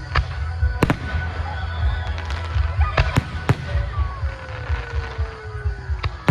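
Aerial fireworks going off in a display: a series of sharp cracking reports, about five in all, bunched around a second in and three seconds in, over a continuous low rumble of booming shells. A long thin tone falls slowly in pitch during the second half.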